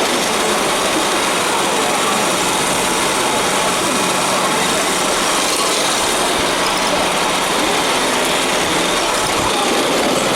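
Roomba robot vacuum running: a loud, steady motor whir, with faint voices in the background.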